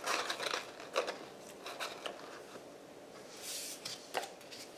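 Paper handled by hand on a craft mat: small pieces of designer paper rustling and being set down, with a few light taps and a brief soft hiss about three and a half seconds in.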